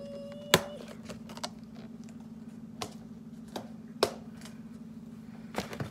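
Scattered light clicks and knocks of things being handled and set down on a kitchen counter, the loudest about half a second in, over a steady low hum.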